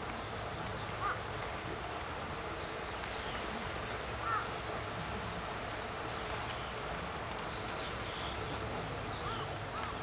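Female bull-headed shrike calling: a short harsh note about a second in, another around four seconds, then a quick run of several arched notes near the end.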